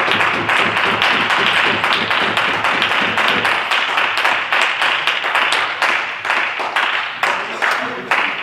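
Small crowd of spectators applauding a won table tennis point: a quick, dense patter of hand claps that thins out near the end.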